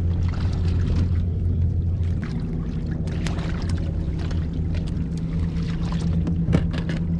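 Steady low mechanical hum of a boat motor on the water, its deepest tone easing about two seconds in, with scattered light clicks and knocks throughout.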